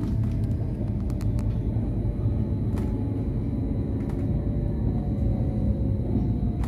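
Interior running noise of an electric commuter train: a steady rumble of wheels on track with a few scattered clicks. A faint whine slides down in pitch over the second half as the train begins to slow.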